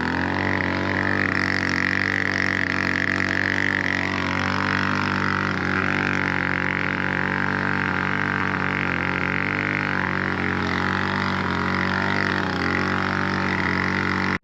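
Gas leaf blower running steadily at full throttle, a constant engine drone with a high fan whine over it, blowing dust and chaff off a combine.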